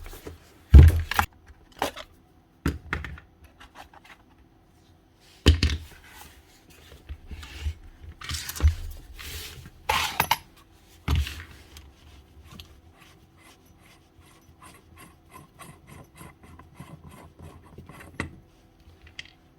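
Metal parts of a demolition hammer being handled on a workbench during disassembly: sharp clinks and knocks, a couple of longer scrapes near the middle, then a run of quick light ticks in the second half.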